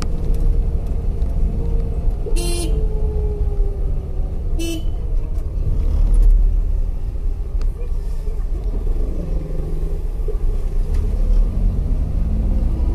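Street traffic: a steady low engine and road rumble, with a short vehicle horn toot about two and a half seconds in and another about two seconds later. Engines of oncoming scooters and motorcycles rise and fall as they pass near the end.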